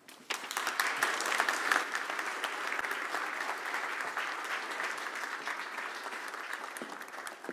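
Audience applauding, swelling within the first second or so and then slowly dying away near the end.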